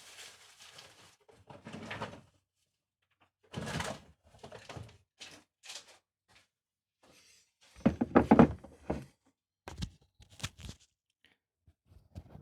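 A series of knocks, thunks and clattering handling noises at irregular intervals, with a louder cluster about eight seconds in.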